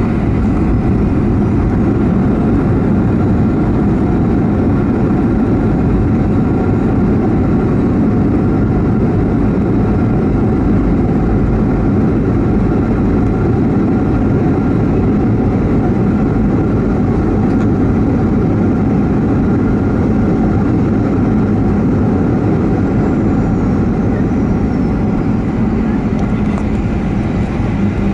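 Steady loud rumble and hum of a Fiji Airways Boeing 737-800, heard from the cockpit while the airliner is landing.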